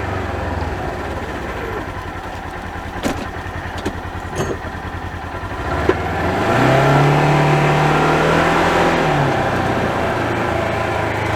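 Polaris Ranger XP 1000 side-by-side's engine running under way in low range, with a few short knocks; about six seconds in it revs up and holds a higher, louder note for about three seconds before easing off.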